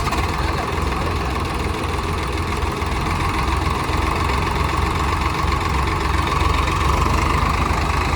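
Tractor diesel engine running hard and steadily under heavy load during a tochan (tractor tug-of-war), getting a little louder in the second half.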